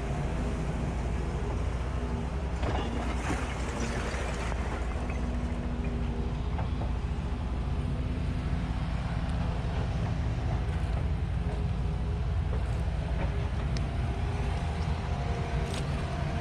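Heavy diesel machinery running steadily, its engine note shifting a little in pitch, with a few sharp clanks.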